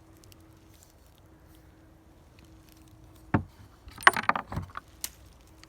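Metallic handling sounds of a revolver and its .32 S&W Long cartridges: a single sharp knock a little over three seconds in, then a brief flurry of clicks and clinks, and one more click near the end.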